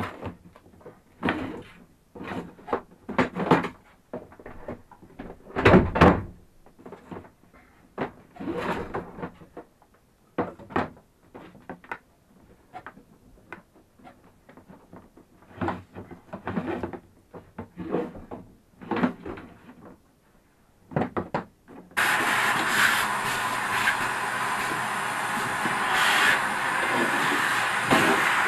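Scattered clunks, knocks and plastic rustling of hand work at a boat's cabin counter. After about twenty seconds a shop vacuum starts abruptly and runs with a steady, loud whoosh as its hose sucks debris out of the bilge.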